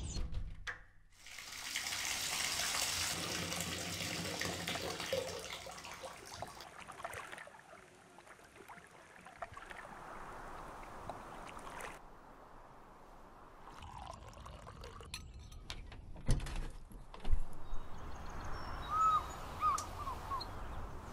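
Water splashing and trickling for the first few seconds, then a quieter stretch. About three-quarters of the way through come a few sharp knocks, the loudest sounds, and near the end a few short chirps.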